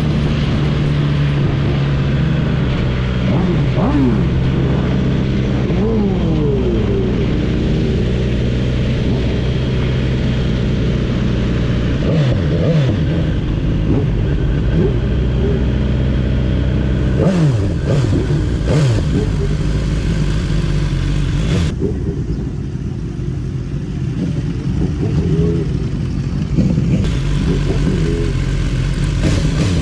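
Sport motorcycle engine running under way, heard from the rider's seat, its revs rising and falling several times as it accelerates and eases off in traffic; it runs quieter for a few seconds past the middle.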